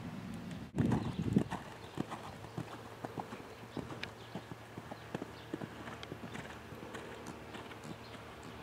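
Hoofbeats of a Holsteiner mare cantering on a sand arena surface: a run of dull thuds, loudest just after a second in.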